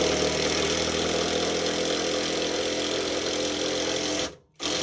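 Impact wrench running steadily, driving the fuel tank's 15 mm strap bolt tight, for about four seconds, then stopping, with one short blip of the trigger near the end.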